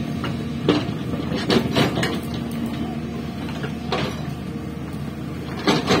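Hyundai excavator's diesel engine running steadily, with irregular sharp knocks and scrapes of its hydraulic breaker's steel tool against rock. The knocks come in a cluster a second or two in, once about four seconds in, and loudest near the end.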